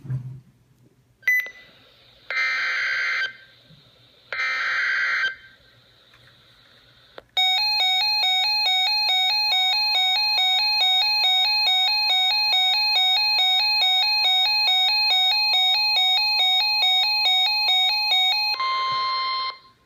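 Emergency Alert System signal for a severe thunderstorm warning. Two short bursts of screechy data noise come about two seconds apart, then an electronic alert tone pulses rapidly for about eleven seconds, with a steady higher tone joining a couple of seconds after it starts. A short burst of data noise sounds near the end.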